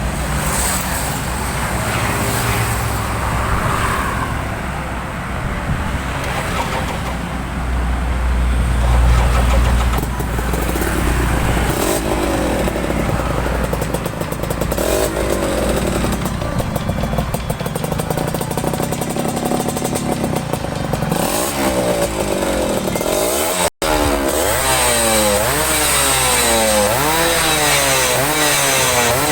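Suzuki Tornado GS 110's single-cylinder two-stroke engine running steadily, then revved up and down repeatedly in quick throttle blips, about one a second, through the last third.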